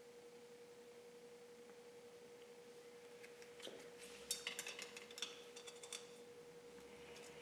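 A steady faint tone hums throughout, and about halfway through comes a short flurry of light clicks and clinks as small painting tools are handled.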